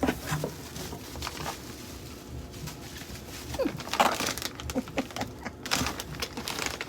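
A cardboard shipping box and its packaging being opened and unpacked: irregular rustling, scraping and clicks, with a few short squeaks.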